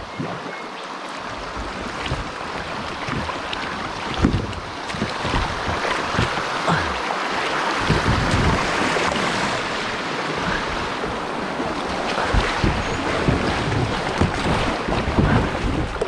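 Water rushing and splashing around a moving kayak, a steady wash that grows a little louder, with irregular low buffeting thumps from wind on the microphone.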